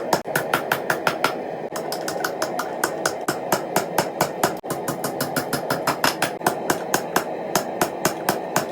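Rapid, evenly spaced hammer strikes on metal, about five a second, over a steady hum.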